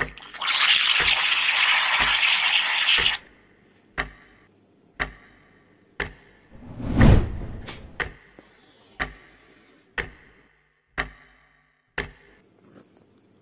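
An aerosol spray can hisses in one steady burst of about two and a half seconds. Then come sharp clock-like ticks, one each second, with a louder low boom about seven seconds in.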